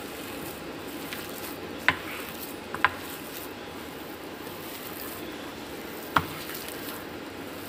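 A hand squishing and kneading a mashed potato and corn filling in a glass bowl, a soft steady rustle, with three sharp knocks against the glass bowl about two, three and six seconds in.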